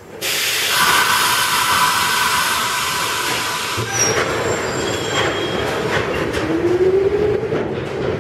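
New York City Subway R127 refuse train with R32 cars: a loud hiss of air starts suddenly and lasts about four seconds. The train then starts moving, its wheels rumbling on the rails, with a short rising motor whine near the end.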